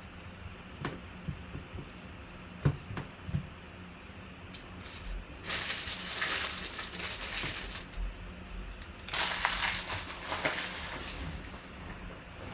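Card-pack wrappers and box packaging being handled and crinkled. A few light clicks and taps come first, then two long stretches of crinkling, each about two seconds.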